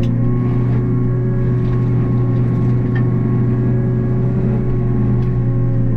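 Takeuchi TB285 excavator's diesel engine running steadily at working speed, driving a Blue Diamond severe duty rotary cutter through brush and small softwoods. It makes an even, loud machine hum with a constant whine over it and a few faint ticks.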